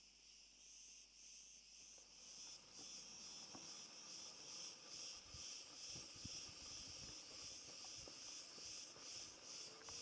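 Faint, high-pitched insect chirring, pulsing a few times a second. Faint, scattered low thuds join it from about three and a half seconds in.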